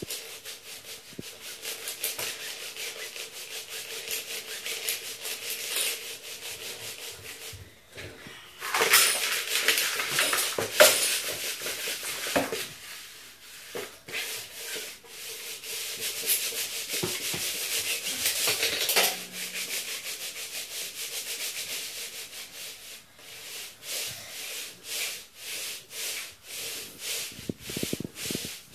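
Plastic Lego bricks rattling and scraping against each other as a Lego city model is shaken, a fast continuous clatter that grows louder about a third of the way in and again past halfway.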